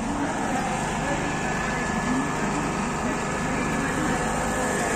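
Indistinct crowd chatter over a steady mechanical hum, with a faint thin steady tone above it.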